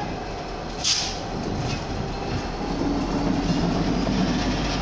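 Class 66 diesel locomotive's two-stroke V12 engine running as the locomotive moves slowly along on a shunting move, a steady low drone that grows louder after about two and a half seconds as it draws nearer. A single sharp clack about a second in.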